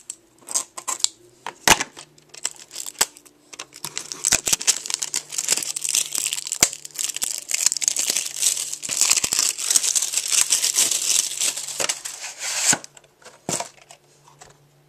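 Shiny plastic wrapping being torn and crinkled by hand: a few clicks and rustles at first, then dense crinkling for several seconds that stops suddenly near the end.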